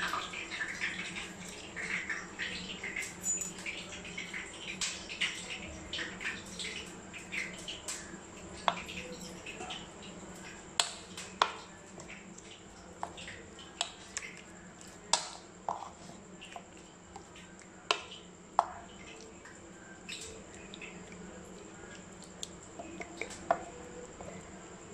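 Scattered clicks and light clinks of a metal spoon against a ceramic plate as marinated chicken pieces are turned in lime juice. The clicks are many and small at first, then sparser and sharper. A faint steady hum runs underneath.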